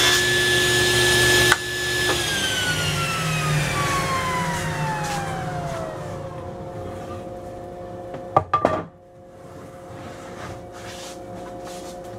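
Table saw ripping a board of soft maple: the cut ends about a second and a half in, then the saw is switched off and the blade coasts down with a long falling whine. A few sharp knocks of wood being handled come near the middle.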